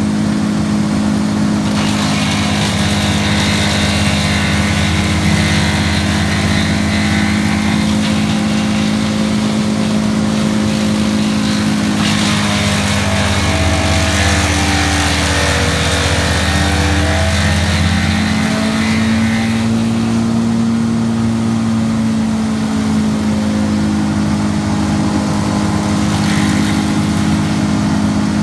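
Towed brush chipper's engine running steadily at high speed while branches are fed in. Three times the branches are chewed up with a harsh chipping noise over the engine: a long stretch starting about two seconds in, a longer one in the middle during which the engine's pitch sags under the load and then recovers, and a brief one near the end.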